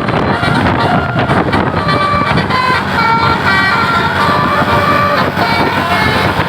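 Tour bus's Basuri telolet horn playing a quick tune of short high notes that change pitch several times a second, over a loud low rumble of vehicle and traffic noise.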